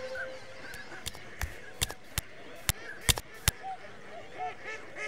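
A crowd of cartoon penguins squawking and honking in many short overlapping calls. Sharp clicks or knocks come in quick succession through the first three and a half seconds.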